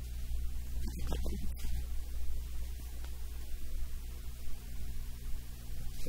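Steady low hum throughout, with a brief murmur from a man's voice about a second in.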